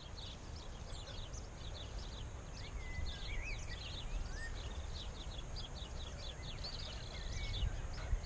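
Wild birds singing and chirping: many short, quick calls with a couple of long, high whistled notes, over a steady low rumble.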